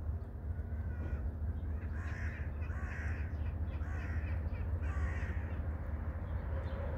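A run of about five short animal calls, roughly one a second, over a steady low rumble.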